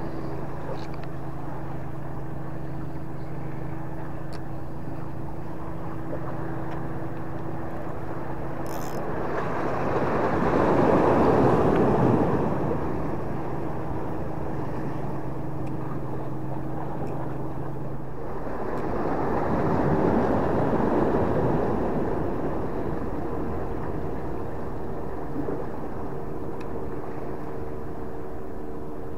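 Steady hum of a boat engine. About eighteen seconds in it drops out, and a few seconds later a higher-pitched hum takes over. Twice the sound of sea wash swells up and fades over a couple of seconds, louder than the engine.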